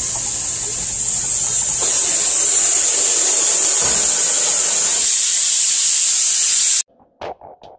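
Water spraying hard from a garden hose's brass nozzle onto the aluminium fins of a commercial freezer's evaporator coil: a steady hiss that cuts off suddenly about seven seconds in, followed by a few faint knocks.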